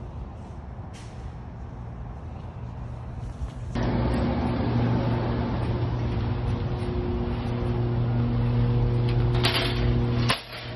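Car running, heard from inside the cabin: a steady low engine hum with road rumble. It gets louder and more tonal about four seconds in.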